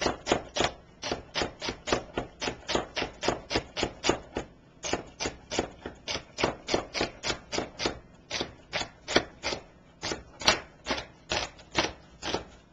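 Kitchen knife chopping celery stalks on a cutting board: a steady run of quick chops, about four a second.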